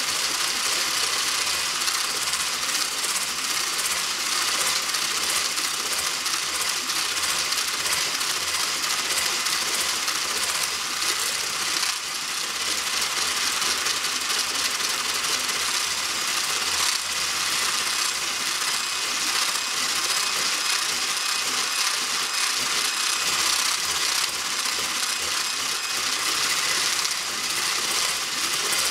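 Electric mixer running steadily, beating a cake batter or cream.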